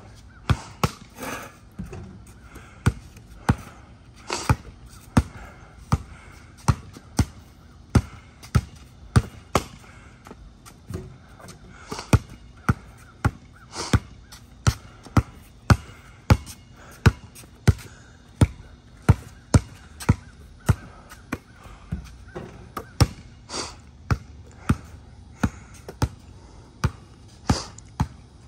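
Basketball dribbled on a concrete driveway: a steady run of sharp bounces, about two a second.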